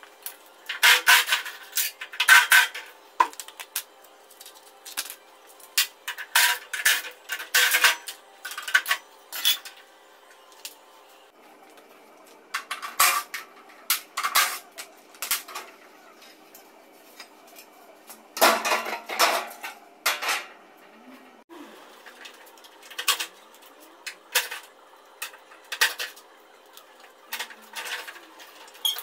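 Irregular metallic clanks, knocks and rattles from the sheet-metal casing and parts of a Trane VRV air-conditioner outdoor unit being dismantled with hand tools. The clanks come in bursts, and the loudest cluster falls about two-thirds of the way through.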